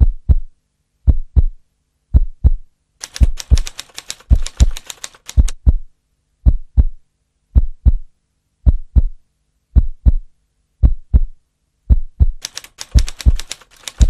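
Heartbeat sound effect, a steady double thud a little more than once a second. Twice it is joined by rapid typewriter key clatter, about three seconds in for a couple of seconds and again near the end.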